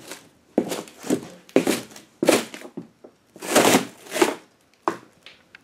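Cardboard packaging rustling and scuffing in a string of about seven short, noisy bursts, as the mower's shipping box and the cardboard underfoot are handled and stepped on.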